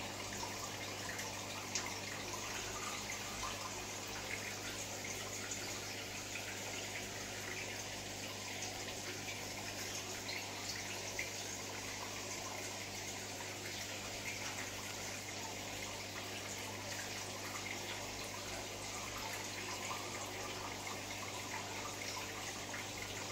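Water trickling and dripping steadily, with small drips ticking through it, over a low steady hum.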